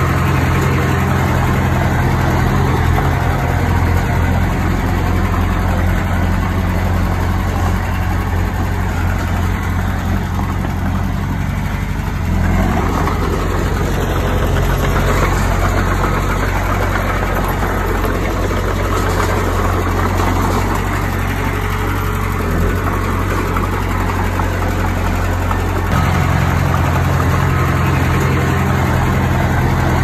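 Bulldozer's diesel engine running steadily, its note shifting about twelve seconds in and shifting back a few seconds before the end.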